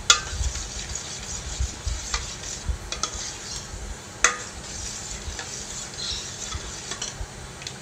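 A metal spoon stirring thick yogurt in a stainless steel bowl: a steady soft wet swishing, with a few sharp clinks of the spoon against the bowl, the loudest about four seconds in.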